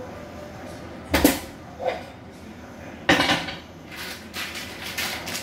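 Cookware clattering on a stainless-steel gas hob as a frying pan and a plate of spaghetti are set down: two loud knocks about two seconds apart with a smaller one between, then a run of light clicks and taps.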